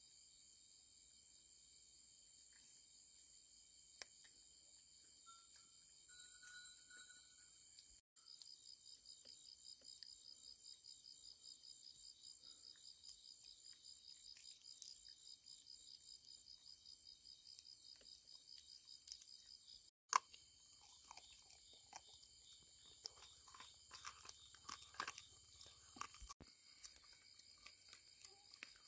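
Faint, steady insect chorus with a fast pulsing high chirr. In the last third it is joined by scattered sharp crunches and clicks.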